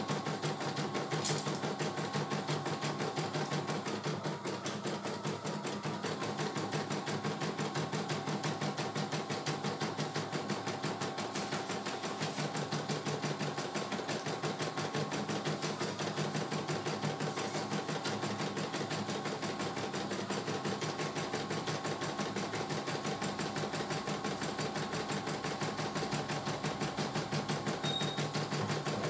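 CNY E900 computerised embroidery machine stitching a design: a fast, even run of needle strokes as the hoop carriage moves the fabric.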